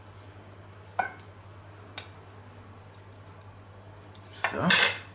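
Fork clicking against a stainless steel bowl and china plate while potato dumplings are served: a sharp click about a second in, another a second later, then a louder, longer scraping, squishing noise near the end.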